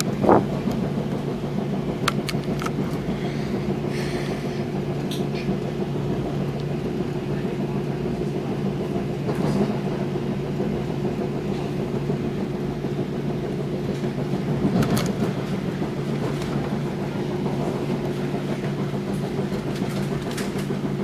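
Steady running noise heard inside a moving passenger train coach: a low hum with several steady tones. A few short knocks and clicks come through, the loudest just after the start.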